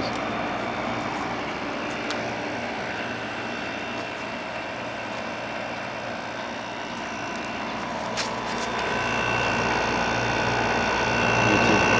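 TCL 5,000 BTU window air conditioner running with its compressor on and fan on low: a steady hum and rush of air. About eight seconds in there is a click, then a steady high whine sets in and the running grows a little louder.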